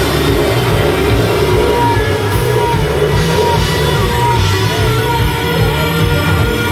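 Rock band playing live: electric guitars and bass, loud and continuous.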